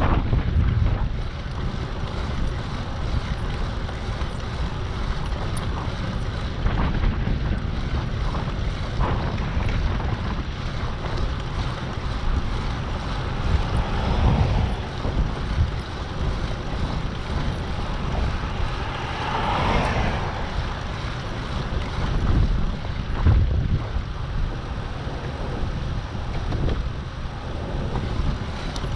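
Wind buffeting the microphone in a deep, uneven rumble over a steady rushing noise, which swells briefly about halfway through and again a little later.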